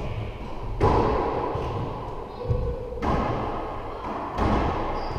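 Racquetball rally: racquet strikes and the ball smacking the walls, three sharp hits a second or two apart, each followed by a long echo in the enclosed court.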